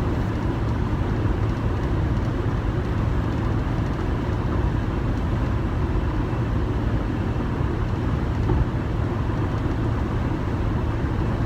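Steady low rumble of a running vehicle, even and unchanging throughout.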